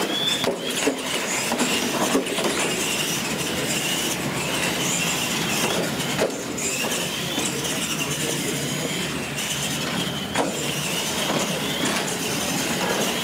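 R/C monster trucks racing: their electric motors and gears whine, rising and falling as the trucks accelerate and let off. A few sharp knocks come as the trucks hit the ramps and land on the concrete floor.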